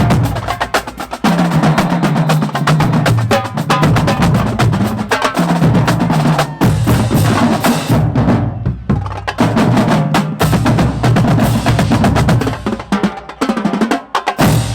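Marching band drumline playing a fast, loud cadence on snare, tenor and bass drums, with a short break about eight seconds in; the drums cut off sharply at the end.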